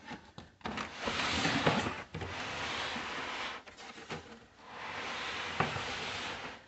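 Cardboard box and packing being handled and slid apart: rustling, scraping noise in three stretches of a second or so each, with a sharp click a little over five and a half seconds in.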